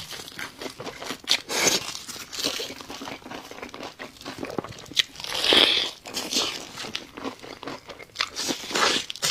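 Person biting and chewing crunchy food, an irregular run of crunches and crackles with a louder, longer crunch a little past halfway.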